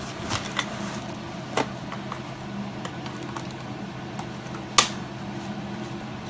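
Plastic Hot Wheels track pieces being handled and fitted together: scattered light clicks and taps, with one sharper click near the end, over a steady low hum.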